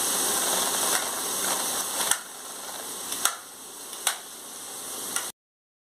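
Sliced onions sizzling in oil as they fry in a pan, a steady hiss that eases a little about two seconds in, with a few sharp clicks. The sound cuts off suddenly near the end.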